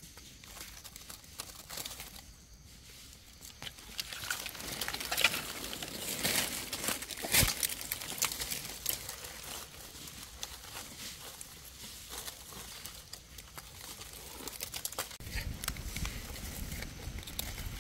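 Dry fallen leaves rustling and crackling as hands push through leaf litter on the ground, with one sharp crack about seven and a half seconds in and a low rumble near the end.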